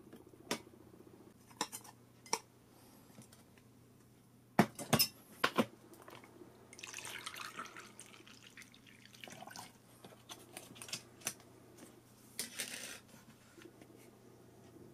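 Sharp clinks and knocks of tableware on a wooden tray, the loudest a quick cluster about five seconds in, then oolong tea poured from a plastic bottle over ice in a mug for about a second and a half. Another short hissing splash follows near the end.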